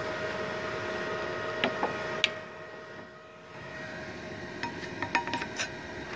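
Multipro EG 200A-SC inverter welding machine humming steadily with its cooling fan running. It dips briefly in the middle. Sharp metallic clicks and clinks come near the end, as the spring earth clamp is handled and clamped onto a steel plate.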